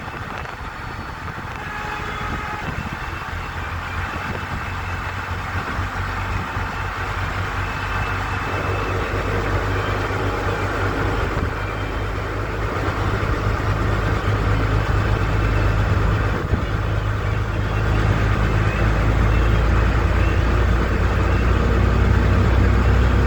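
A motor vehicle's engine running with a steady low rumble that grows gradually louder.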